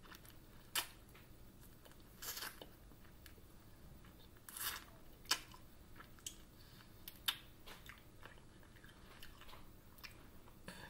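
A person biting and chewing air-fried chicken wings, with irregular short crunches and mouth clicks every second or so.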